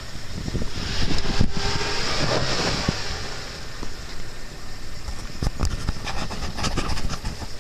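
Daihatsu Feroza 4x4 driving under load as it climbs out of a deep muddy rut, its engine running hard and tyres working through mud. There are several sharp knocks from the vehicle along the way.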